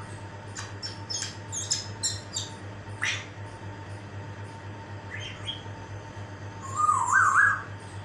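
Grey parrot chirping. It gives a quick run of short, high clicks and chirps, then one short chirp, and near the end a loud whistle that wavers up and down in pitch. A steady low hum runs underneath.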